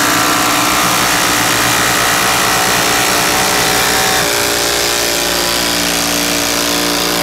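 Two Makita cordless impact drivers, a 40 V and an 18 V model on their highest mode, hammering long screws into a timber beam at the same time: a loud, continuous impacting rattle with a motor whine. The whine shifts in pitch about four seconds in, and the noise cuts off suddenly as the screws are driven home.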